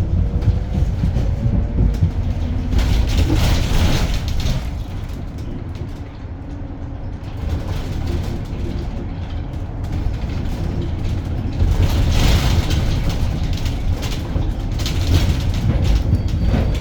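Edison Motors SMART 093 electric city bus driving, heard from inside the cabin: steady low road and tyre rumble that swells louder about three seconds in and again around twelve seconds.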